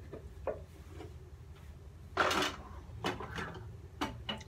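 Kitchen clatter of dishes and utensils: scattered knocks and clinks, with a louder short noisy burst about two seconds in, over a steady low hum.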